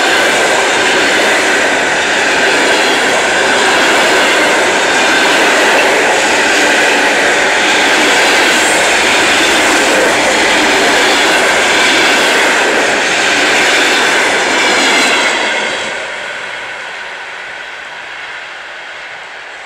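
ED4M suburban electric multiple unit passing close at speed: a loud, steady rush of wheels on rail and car bodies going by. It fades to a lower rush about fifteen seconds in as the last cars clear.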